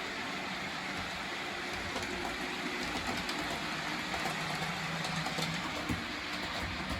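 A model train running along the layout's track: a steady running noise with a low hum and scattered small clicks from the wheels.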